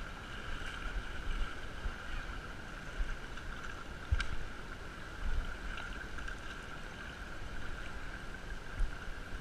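River water running over a shallow riffle, with low wind and handling thumps on the camera microphone and a steady high tone. There is a single sharp click about four seconds in.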